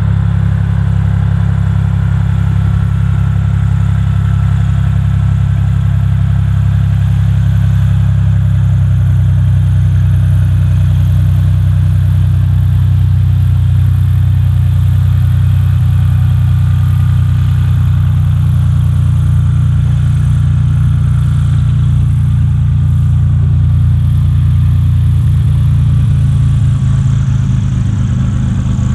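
Turbocharged Continental TSIO-520 flat-six piston engine of a Cessna P210R Pressurized Centurion II running steadily at low power as the aircraft taxis, propeller turning.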